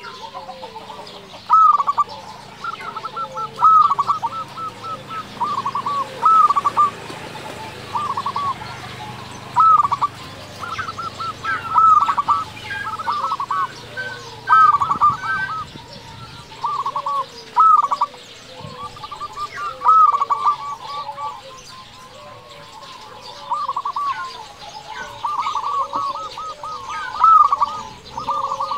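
Zebra dove (perkutut) cooing: a phrase of quick rolling, bubbling notes repeated every second or two, with softer, lower curving notes between the phrases.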